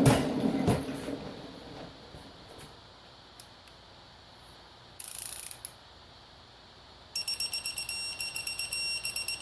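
A few sharp metallic knocks and clatter in the first second, a brief hiss about five seconds in, then a rapid, steady-pitched electronic beeping that starts about seven seconds in and keeps going.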